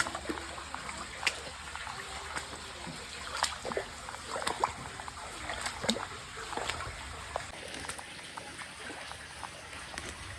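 Water trickling and dripping, with irregular light splashes and taps.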